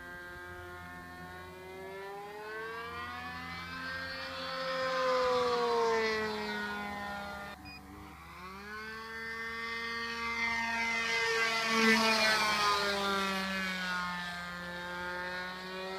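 RC model airplane's motor and propeller in flight, a steady drone whose pitch rises and then falls as the plane passes, twice, with a brief break about halfway through.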